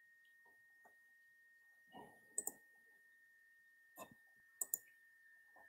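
Two pairs of sharp computer mouse clicks, about two and a half and four and a half seconds in, over a faint steady high whine.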